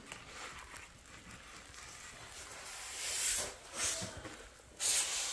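Flat steel trowel scraping over wet cement-based floor patch compound, three short rasping strokes in the second half, smoothing out trowel marks.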